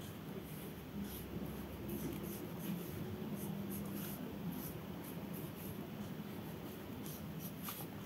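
Soft scratching of a thin paintbrush laying gouache onto paper in short, light strokes, with faint ticks here and there over a low steady hum.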